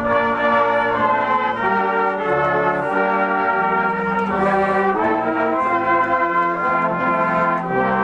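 Brass band playing a slow tune in held chords, the notes changing about once a second.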